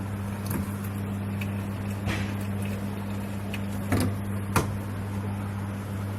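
A steady low hum with a few short clicks and knocks over it, the two loudest about four seconds in.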